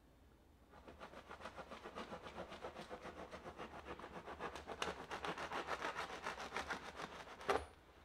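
A long knife sawing back and forth through a crusty loaf of bread on a wooden board, in quick rasping strokes of about five a second, with a louder crunch near the end.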